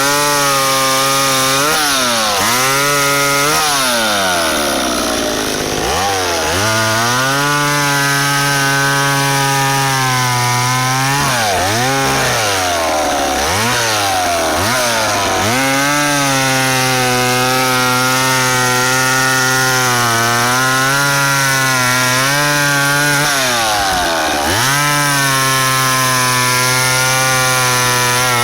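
McCulloch Mac 10-10 two-stroke chainsaw cutting wood: the engine is revved up and held at high speed several times, the longest for about seven seconds, and drops back toward idle in between.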